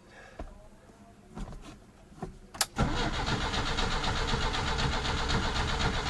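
A click, then the Peugeot 505's starter cranking the engine for about three seconds without it catching: the freshly fitted carburetor has no fuel in it yet, so the mechanical fuel pump has to fill it by cranking.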